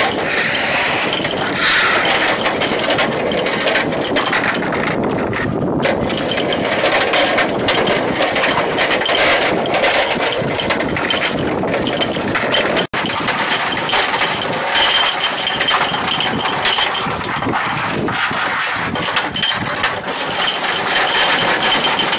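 Steady engine noise on an aircraft flight line, with metallic clicks and rattles of cannon cartridges being handled in an ammunition loading tray. The sound cuts out for an instant about thirteen seconds in.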